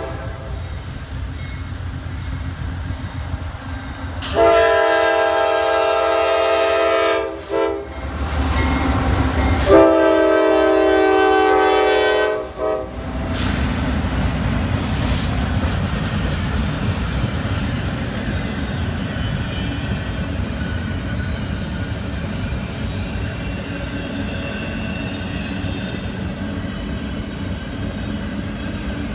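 CSX diesel freight locomotive's multi-chime air horn: a long blast, a brief short toot, and another long blast, the closing part of the standard grade-crossing signal. The locomotives then pass close by, followed by the steady rumble and clatter of double-stack intermodal well cars rolling over the rails.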